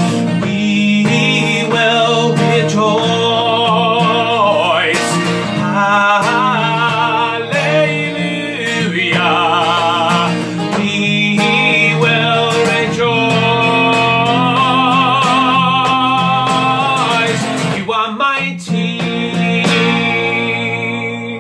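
A man singing a worship song with vibrato, accompanied by a strummed acoustic guitar.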